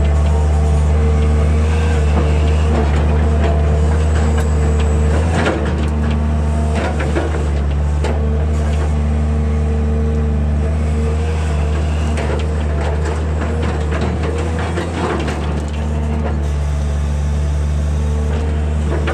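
Excavator's diesel engine running steadily, with two stretches of clanking and scraping from the bucket digging into soil, the first about a third of the way in and the second past the middle.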